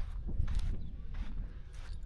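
Footsteps of someone walking on a beach, about two steps a second, over a steady low rumble of wind on the microphone.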